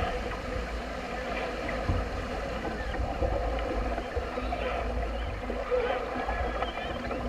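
Water rushing and splashing along the hull of a heeled sailing yacht driving through chop, with wind buffeting the microphone in an uneven low rumble.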